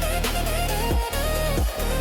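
Electronic background music with a heavy sustained bass and a lead line that glides up and down in pitch, marked by sweeping drops about every second.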